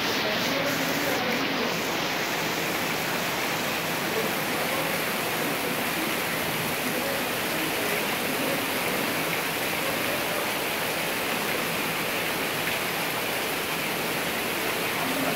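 Waterfall: water pouring and spraying down a moss-covered rock face into a stream, a steady, even rush.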